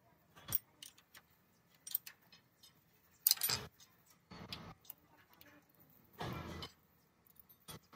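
Irregular clinks and knocks of hand work on metal engine parts, with a few short, louder scraping or rushing noises, the loudest a little after three seconds in and a longer one around six seconds.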